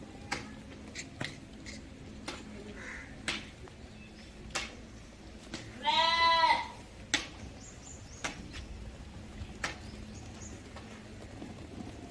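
A goat bleats once, a loud, wavering call of under a second about halfway through, with sharp short clicks and knocks scattered around it.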